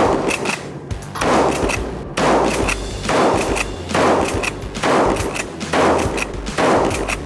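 SCSA Taipan Light pump-action .223 rifle firing a rapid string of about eight shots, roughly one a second, with the action pumped between shots.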